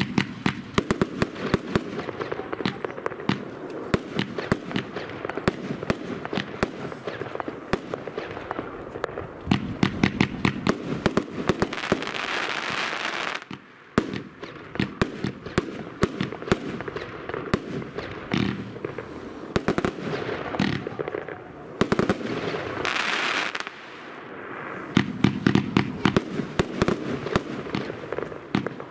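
Heron Professional Powerbox 1, a compound of four fused 25 mm firework batteries, firing rapidly: a dense, unbroken stream of launch thumps and star bursts. Twice there is a stretch of steady hiss among the shots, and there is a brief lull a little before halfway.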